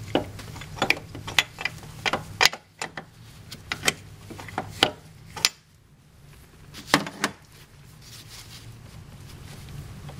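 Irregular metallic clicks and clinks of a wrench being worked on a steel brake-line flare nut at a master brake cylinder while it is loosened, with a low steady hum behind.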